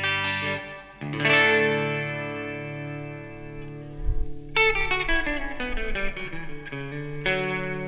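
PRS S2 Studio electric guitar played through an amp. A chord is struck about a second in and left to ring out. Midway a new chord comes in with a few quick picked notes, and another chord is struck near the end.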